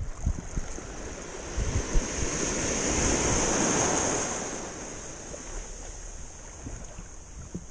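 A small wave breaking and washing in around the legs in shallow surf, swelling over a couple of seconds and then fading, with wind buffeting the microphone.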